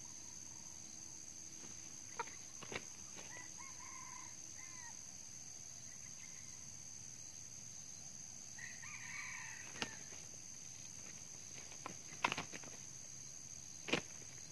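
Red junglefowl roosters facing off: a cock crows twice, a few seconds apart, over a steady high drone of insects. Near the end come sharp slaps of wings as the cocks leap at each other and strike.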